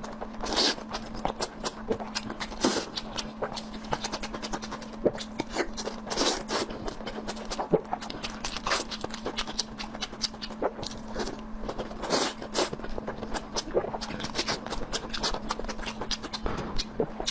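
Close-miked mouth sounds of eating: chewing and wet smacking, with many small irregular clicks and crunches. A steady low hum runs underneath.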